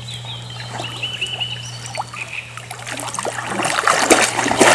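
Black Labrador swimming and then wading through shallow pond water with a stick in its mouth: water sloshing and splashing, growing steadily louder as the dog nears the bank, loudest near the end. A bird chirps a few quick notes in the first second or so.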